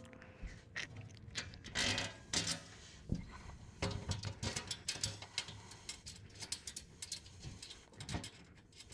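Irregular clicks and metallic clinks of a bolt and washer being threaded finger-tight through an aluminum skid plate into the car's crossmember, with the plate being shifted into place.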